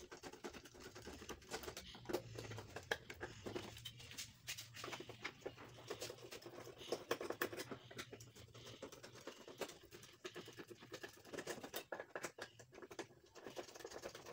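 Hand screwdriver turning out the screws that hold a TV stand leg to the plastic back cover: faint, irregular small clicks and scrapes of metal on screw heads and plastic.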